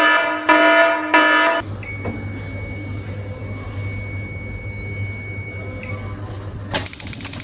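An electrical appliance gives three loud electronic beeps, then runs with a steady low hum and a faint high whine. About seven seconds in comes a rapid run of sharp clicks.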